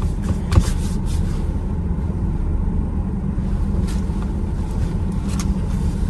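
Steady low rumble inside a parked car's cabin with the engine running. There is a sharp click about half a second in, and a few light clicks and rustles near the end as a tissue is handled.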